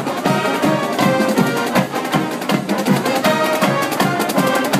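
Marching band playing live: snare and bass drums keeping a steady beat under held brass notes from horns and sousaphones.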